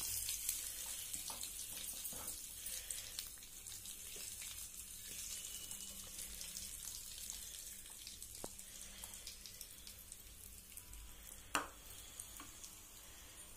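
Hot oil with curry leaves sizzling in a tempering pan, the sizzle slowly dying down as the oil cools with the stove switched off. A single knock near the end.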